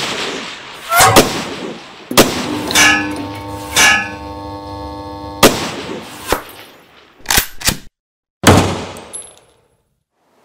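Intro sound effect of gunshots and bullets striking steel: about six sharp shots in quick succession, several followed by a metallic ringing, then two quick clicks and a rush of noise that fades out.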